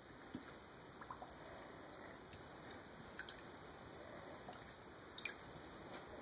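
Border collie puppy dabbling in a stainless steel bowl of water, making small wet splashes and drips with scattered light clicks against the metal. The sharpest click comes a little past five seconds in.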